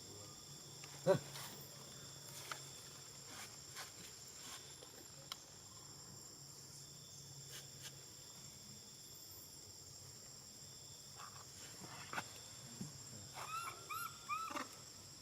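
Steady high drone of insects such as crickets, with one sharp squeak about a second in and a quick run of four or five short, high-pitched calls near the end from a baby macaque.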